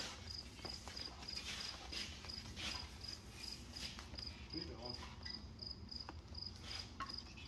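A cricket chirping steadily, short high chirps about three a second, over faint rubbing and rustling of rubber hose being pulled off a roll and looped by hand.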